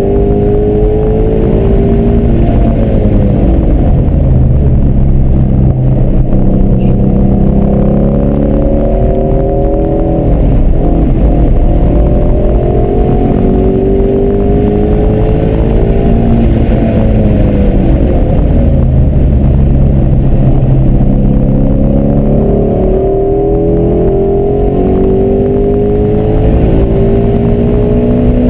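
Ford Mustang Shelby GT350's 5.2-litre flat-plane-crank V8 under hard driving on track, its revs climbing and dropping again and again as it accelerates, shifts and slows for corners.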